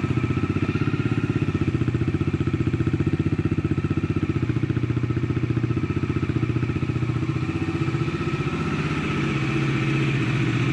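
Bajaj Dominar 400's single-cylinder engine idling steadily just after a cold start, with an even, rapid firing pulse; the level lifts slightly near the end.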